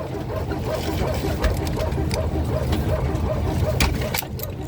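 Airliner cabin at the gate: a steady low hum with a faint pulse repeating about three to four times a second, and scattered sharp clicks and knocks as passengers open the overhead bins and gather their things.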